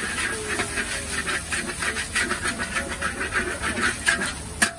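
Metal wok spatula scraping and tapping across a steel wok in quick, uneven strokes as an egg is scrambled, over a steady sizzling hiss. A sharper knock of the spatula on the wok comes near the end.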